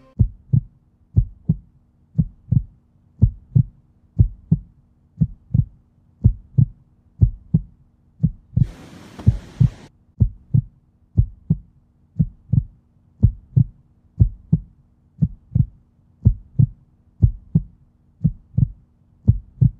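Heartbeat sound effect: low double thumps repeating steadily, a pair a little slower than once a second, over a faint steady hum. A short burst of hiss comes about nine seconds in.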